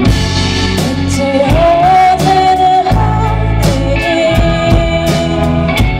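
Live rock band with a singer: the vocalist holds long sung notes over electric guitars, bass guitar, keyboard and a drum kit keeping a steady beat.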